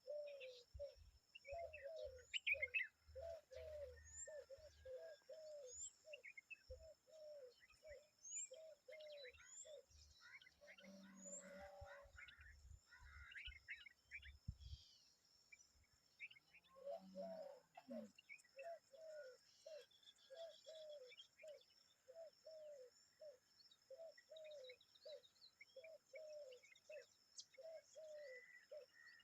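Faint chirping from common babblers and their chicks, over another bird's low note repeated about twice a second that pauses for a few seconds midway.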